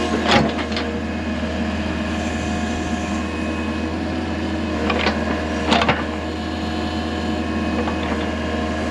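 Excavator's diesel engine running steadily while its bucket digs into the soil of a drainage-tile start hole, with short clunks and scrapes from the bucket about half a second in and twice around five to six seconds in.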